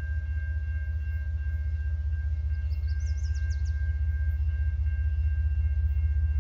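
Low, evenly pulsing rumble of two approaching CN diesel freight locomotives, still out of sight, growing slowly louder. A bird chirps briefly about halfway through.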